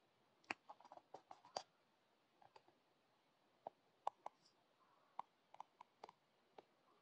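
Near silence broken by faint, irregular small clicks and taps: a quick run of them in the first second and a half, then scattered single clicks.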